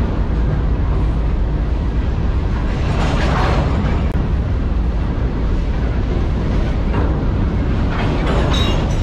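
A loaded CSX rock train's open hopper cars rolling past close by: a steady heavy rumble of steel wheels on rail, with a louder stretch of clatter about three seconds in and a brief high squeal near the end.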